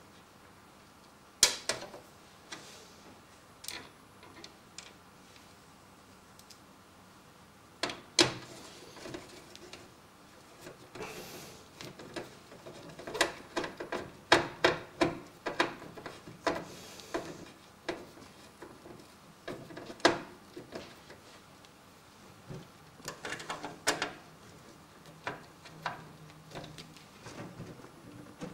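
Scattered clicks, taps and light scraping of screws and a screwdriver being worked into a metal PC case, in uneven clusters with a busier stretch in the middle.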